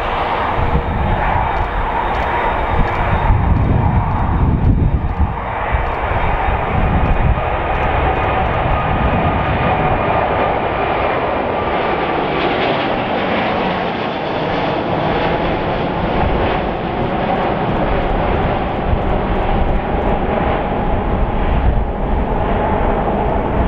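Four-engine Airbus A380 airliner at takeoff thrust, rolling down the runway and climbing out overhead: loud, steady jet engine noise with a deep rumble. About halfway through, a low tone in it drops in pitch as the aircraft passes overhead.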